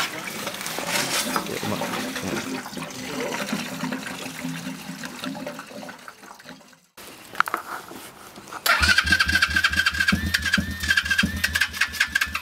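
Petrol gurgling from a jerry can spout into a pit bike's fuel tank for about six seconds. After a short break, the Kurz RT1 pit bike's engine comes in suddenly near the end and runs with a steady rapid beat.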